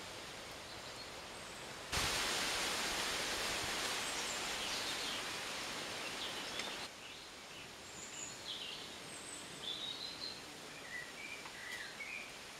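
Woodland ambience: a steady outdoor hiss with scattered short chirps of small birds, mostly in the second half. About two seconds in, a louder even rushing hiss starts suddenly and stops just as abruptly about five seconds later.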